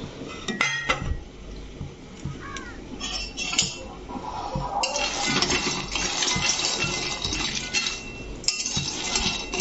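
Metal spatula clinking and scraping against a metal kadai as peanuts and dried red chillies are stirred while dry-roasting. A few sharp clinks come in the first second, and continuous scraping with clinks starts about five seconds in.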